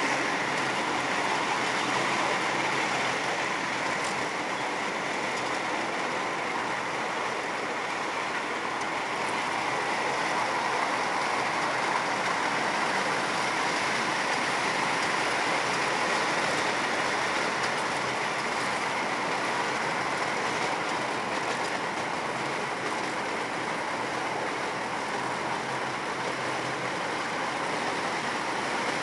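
Ride-on miniature train running along its track, heard from one of its cars: a steady rolling rattle of the wheels on the rails that does not break or change.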